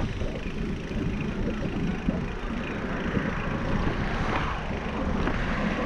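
Steady low rumble of wind on the microphone as a bicycle rolls along a brick-paved path.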